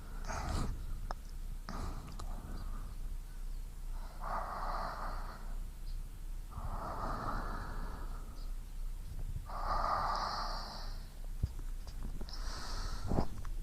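Close-miked human breathing recorded for both ears: slow, even breaths in and out, one swell of breath about every two to three seconds. A few faint clicks fall between the breaths.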